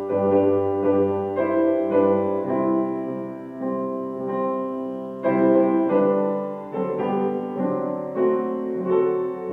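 Piano music: slow, sustained chords struck one after another, each fading before the next.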